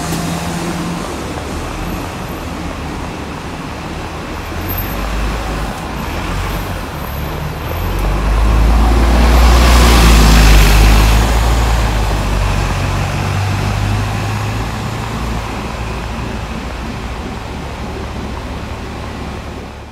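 Double-decker diesel bus moving off and driving close past, its low engine rumble and road noise swelling to a peak about ten seconds in and then fading away, with general street traffic behind it.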